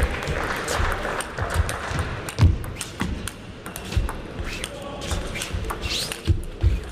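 Table tennis rally: the ball clicking off rackets and the table in quick, irregular hits, with voices murmuring in the background and a short rising squeak about six seconds in.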